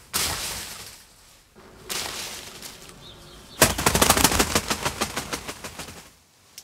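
A foley prop thrown down: a sudden hit that dies away, then a fast rattling clatter of many small clicks fading out over about two seconds.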